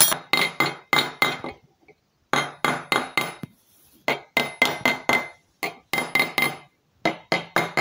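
Metal spoons drumming on upturned plastic cups: quick runs of four to six sharp taps with short pauses between, each tap with a faint metallic ring.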